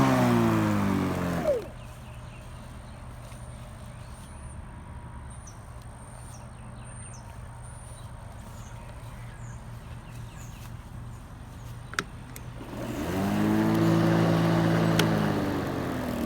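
Sun Joe 28-volt cordless electric lawn mower's motor and blade spinning down to a stop, falling in pitch, with a click as it ends. Then several seconds of quiet with faint bird chirps. About twelve seconds in there is another click, and the motor spins back up to a steady whir for a couple of seconds, then starts winding down near the end.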